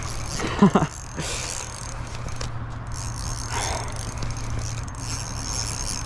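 Ultralight spinning reel being cranked steadily, its gears whirring under the load of a hooked carp. A short grunt-like voice sound comes about half a second in.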